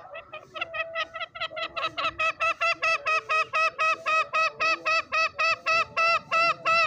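Green junglefowl calling in a rapid run of repeated notes. The run starts soft and grows louder over the first two seconds, then holds at about four loud notes a second.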